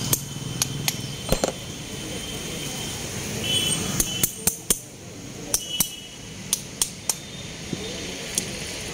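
Small hammer striking the head of a metal chisel held against a coconut shell, sharp metallic taps at an uneven pace, often in quick pairs.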